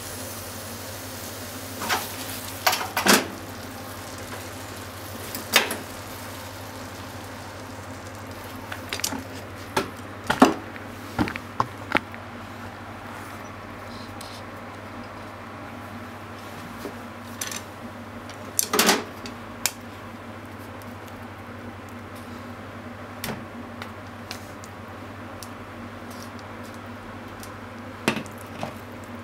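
Chopsticks and a frying pan clattering as fried tofu is stirred and then tipped into a ceramic bowl: scattered sharp clicks and knocks, loudest about three, ten and nineteen seconds in, over a steady low hum.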